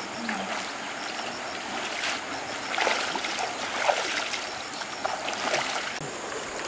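Water sloshing and splashing as people wade in a river and grope under the surface with their hands, over the steady rush of the flowing river.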